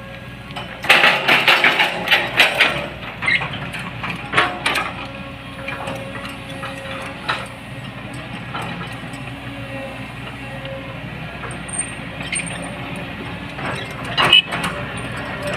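Excavator engine running steadily, with a burst of clattering knocks about a second in that lasts a couple of seconds, and a few single knocks later, the sharpest near the end.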